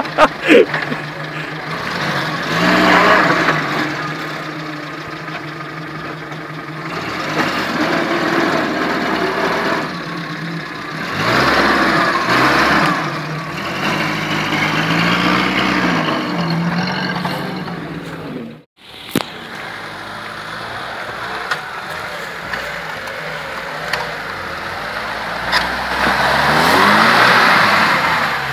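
UAZ-469 off-roader's engine revving up and down several times as it works through mud, cut off abruptly about two-thirds of the way in, then a Lada Niva's engine revving up as it crawls through a muddy rut.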